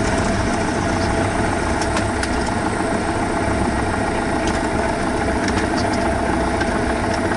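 Cessna 172 floatplane's piston engine running steadily at low power.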